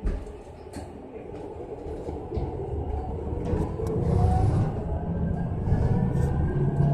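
Electric bus pulling away: a thud at the start, then a low rumble that grows steadily louder with a faint rising motor whine as the bus picks up speed.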